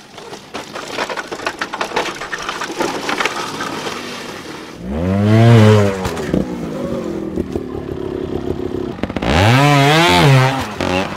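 Trials motorcycle engine revved hard twice, each rev rising and falling in pitch over about a second: once about five seconds in and again near the end. Before the first rev there are several seconds of crackling and clicking.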